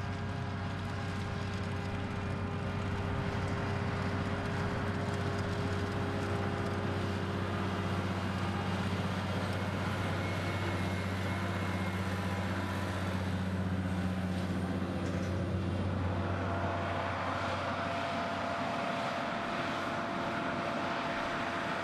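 Vredo self-propelled slurry injector running steadily as it crosses grassland, its engine giving a low, even hum. About 16 seconds in the low hum fades and a higher hiss with a thin steady whine takes over.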